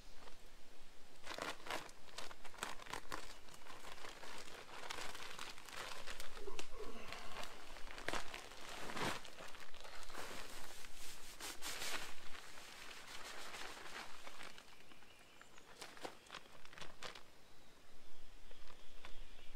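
Feed sacks of rice bran rustling and crinkling as they are pulled open and tipped out onto the ground. The rustling comes in irregular bursts through most of the first two-thirds, with a few more near the end.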